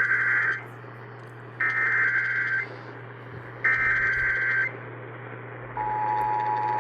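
Emergency Alert System SAME header: three buzzy digital data bursts of about a second each, a second apart, encoding a severe thunderstorm warning, heard over AM radio with a steady low hum. Near the end the steady two-tone EAS attention signal begins.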